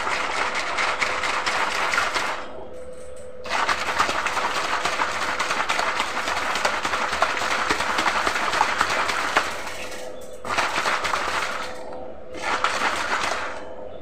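Plastic bottle of water and aloe vera juice being shaken hard to mix it: crackling plastic and sloshing liquid in four spells of shaking, the longest several seconds, stopping shortly before the end. A faint steady hum runs underneath.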